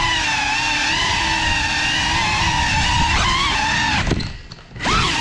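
FPV drone motors and propellers whining steadily with a slightly wavering pitch. About four seconds in the throttle drops and the whine falls away for under a second, then returns with quick rises and falls in pitch as the throttle is punched again.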